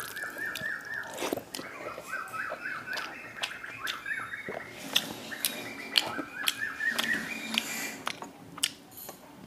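A bird chirping in quick repeated runs, several bursts of chirps in a row, with scattered small clicks and smacks of eating by hand from a steel plate.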